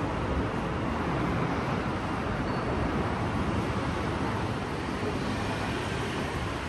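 Steady city street ambience: an even rumble of traffic and urban background noise, with no single event standing out.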